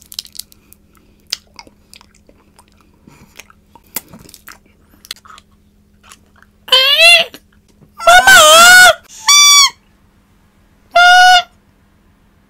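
Four loud honking toots, each about half a second to a second long with a wavering pitch, one steadier and more whistle-like, starting about seven seconds in. Before them come faint clicks and chewing.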